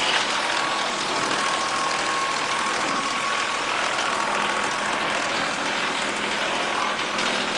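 Disc wood chipper running, a loud, steady mechanical noise with a faint high whine through the first part.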